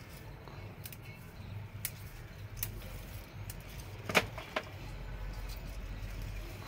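Small sharp clicks and snaps as hands handle fleshy kalanchoe cuttings, the loudest a little past halfway with a smaller one just after, over a low steady rumble.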